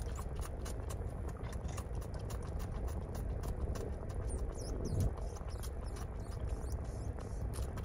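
Baby coatimundi suckling at a bottle nipple, making quick irregular clicks several times a second, over the car's steady low hum. One soft bump about five seconds in.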